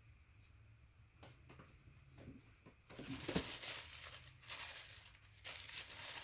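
Paper towel crinkling and rustling as it is handled, starting about three seconds in with a run of sharp crackles, after a few faint handling clicks.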